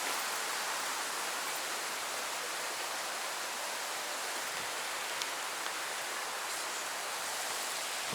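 Steady rush of a waterfall and its stream, an even hiss of falling and running water that does not change.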